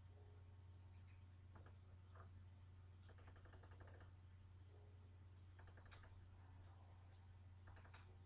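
Near silence with faint computer clicks: a few single clicks and a quick run of clicks in the middle, over a steady low hum.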